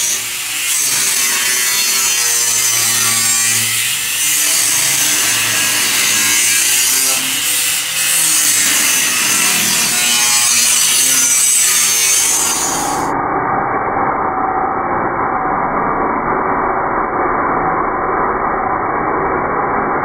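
Handheld angle grinder cutting through a painted steel strip, running steadily under load. About two-thirds of the way through, the sound abruptly turns duller, losing its high end.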